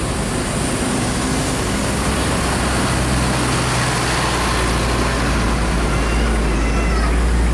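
Large tour bus engine running as the bus goes past, a deep steady drone that grows louder about three seconds in, over a wash of road and traffic noise.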